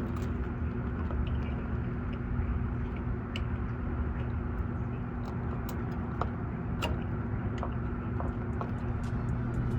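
A steady low hum, with a scattered handful of light clicks as plastic tail-light clips are pushed into their retainers.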